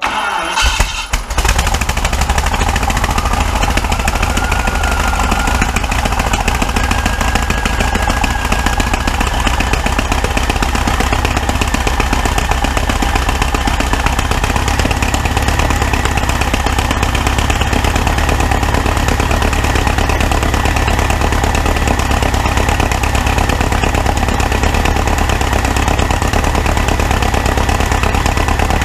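Turbocharged 1953 Rover Meteorite Mk204 18-litre V8 on its first run: it fires up unevenly in the first second or so, then runs steadily. A thin whistle rises in pitch over the first ten seconds or so and then holds steady.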